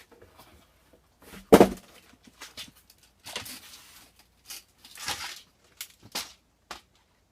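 Packaging and items being handled by hand: one loud thump about one and a half seconds in, then a run of short rustles and knocks.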